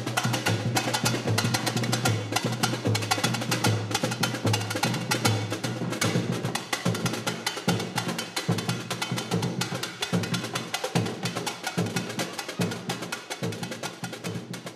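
Samba drum section (bateria) playing a fast, dense rhythm: rapid sharp strokes over steady low bass-drum beats, getting quieter in the last few seconds.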